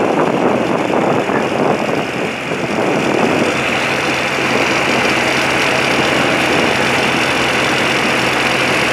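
Tractor engine running as the tractor drives along, heard from on board, with a steady low engine hum that settles in about three and a half seconds in over a continuous rush of noise.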